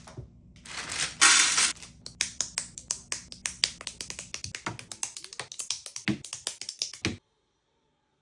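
LEGO plastic pieces being handled, with a loud rustling burst about a second in, then a long run of quick clicks and taps as bricks are sorted and snapped together; the sound cuts off suddenly near the end.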